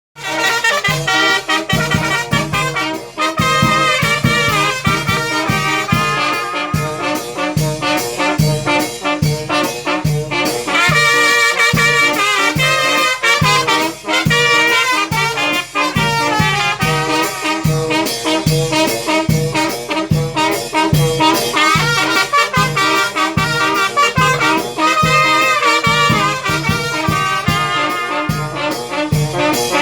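Mexican banda, a brass band, playing: trumpets and trombones carry the melody over a steady low oom-pah beat about twice a second.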